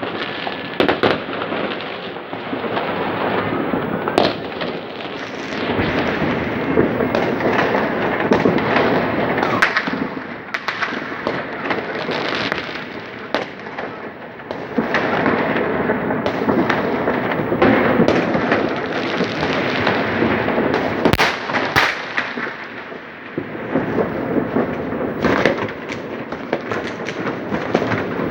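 Many fireworks going off at once, overlapping into a continuous crackle and rumble of bursts, with sharper single bangs standing out now and then, including two sharp cracks close together about three quarters of the way through.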